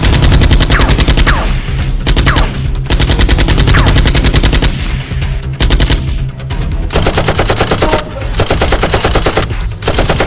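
Dubbed automatic-gunfire sound effects: several long bursts of rapid fire with short breaks between them.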